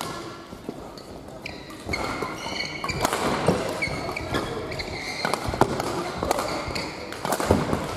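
Badminton rally: rackets hitting the shuttlecock in sharp cracks and court shoes squeaking on the hall floor, echoing, busier from about two seconds in.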